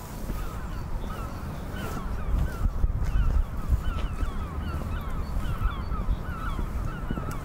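A flock of birds calling over and over, many short chirping calls overlapping several times a second, over a steady low rumble.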